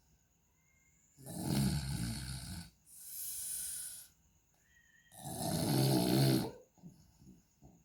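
Loud rasping snoring, likened to a racing exhaust: two long rattling snores about four seconds apart, with a softer hissing breath between them and a few faint clicks near the end.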